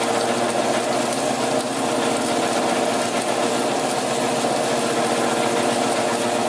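Harbor Freight 7x12 horizontal metal-cutting band saw running steadily, its motor and blade making a constant mechanical whir with a steady hum.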